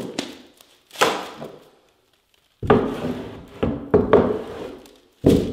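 Dull knocks on a painted wooden stair as a peel-and-stick carpet tile is pressed and knocked down onto the tread: one at the start, one about a second later, then several more close together through the second half.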